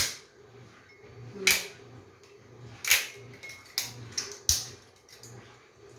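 Dry, uncooked lasagna pasta snapping and clicking as it is broken into small pieces and layered into a mug. It gives about six sharp, irregular cracks, the loudest about one and a half and three seconds in.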